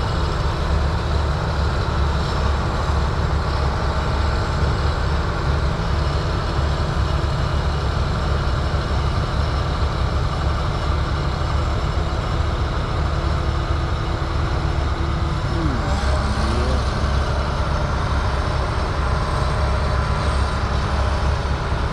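Heavy diesel farm machinery engine running steadily, a constant low rumble.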